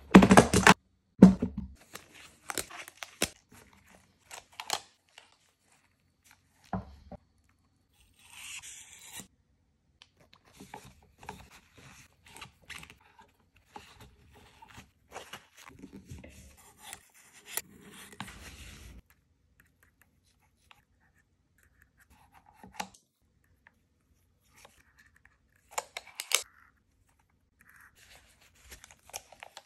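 Handling noises from cleaning a stainless Smith & Wesson 929 revolver: a couple of loud knocks as the cleaning mat is laid out at the start, then scattered metallic clicks, scrapes and a cloth rubbing over the gun's metal. There is a brief hiss about eight seconds in.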